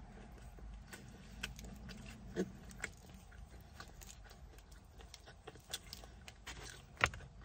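Close chewing of a bite of a Pizza Hut Melt, a folded thin-crust pizza with a crispy crust: soft crunches and mouth clicks scattered through, with a sharper click near the end.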